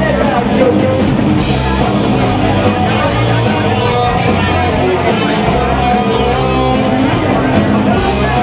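A rock band playing live: electric guitar and drum kit, with a steady beat of cymbal hits.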